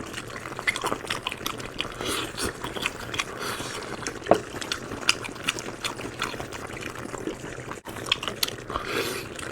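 Clay pot of stuffed pork intestines bubbling in its liquid, with many small irregular pops and crackles over a soft hiss.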